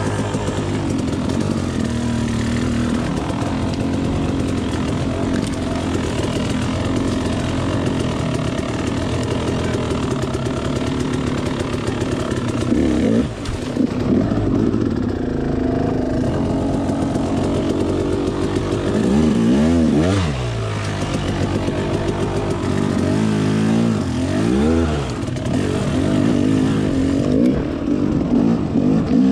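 Dirt bike engine running while riding off-road trails, its pitch rising and falling as the throttle is worked, with a few quick sharp revs about two-thirds of the way through.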